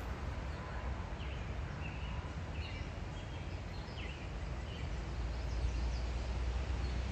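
Birds chirping briefly now and then over a steady low rumble that grows a little stronger after the midpoint.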